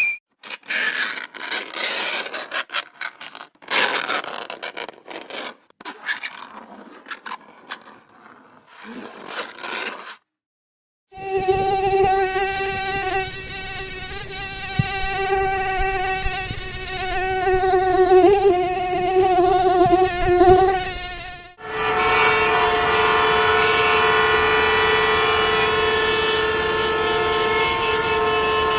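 Several annoying noises in a row: about ten seconds of irregular scratching and scraping, then a wavering, whining buzz typical of a mosquito in flight for about ten seconds, then a steady high hum.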